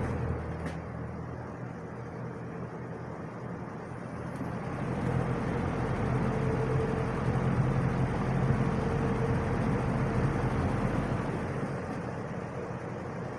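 Wizard box fan running on low speed: a steady motor hum under the whoosh of moving air. It swells louder about four seconds in and eases off near the end. The motor is slow to reach full speed until it warms up, which the owner takes as nothing unusual.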